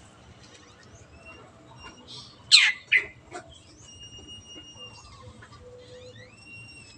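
Long-tailed shrike singing: two loud, harsh squawking notes sweeping steeply down in pitch about two and a half seconds in, among thin, high whistled notes and short rising glides.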